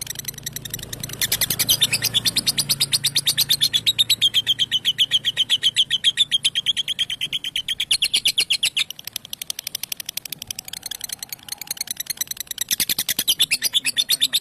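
Lovebird ngekek: a long, unbroken chattering trill of sharp notes, about ten a second. It grows louder about a second in, eases off past the middle and picks up again near the end.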